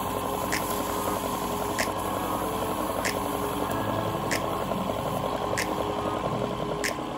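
Small wood lathe running steadily while a bundle of wood shavings is held against the spinning spindle to burnish it. A faint, even tick comes about every second and a quarter.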